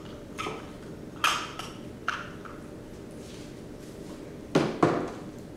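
A few irregular short knocks and clicks over a steady low hum, the two loudest knocks coming close together near the end.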